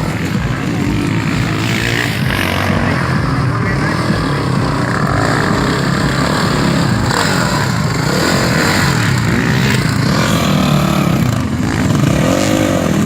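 Off-road dirt bike engines running and revving, mixed with voices; near the end an engine's pitch rises and falls.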